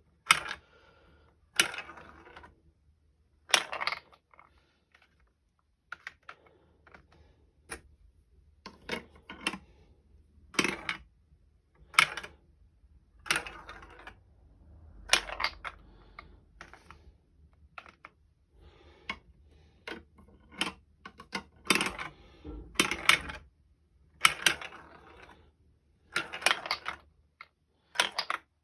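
Marbles clattering through a plastic Duplo-compatible marble run, with sharp clicks and clacks every second or two as they drop onto and knock along the track and slide pieces.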